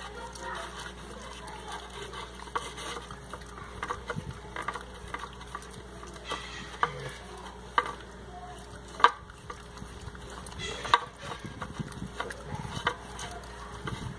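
A dog licking and sucking at a block of ice in a plastic bowl: irregular wet licking, with scattered clicks and knocks of ice against the plastic, the sharpest about nine seconds in and another about eleven seconds in.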